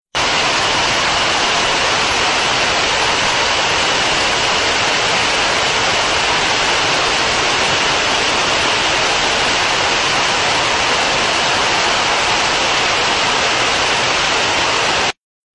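Heavy hail and rain pouring down in a dense, even hiss with no breaks.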